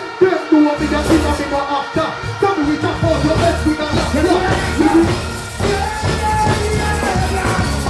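Live dancehall music over a festival PA: a deejay chanting into a microphone over a riddim. A heavy bass line comes in about a second in.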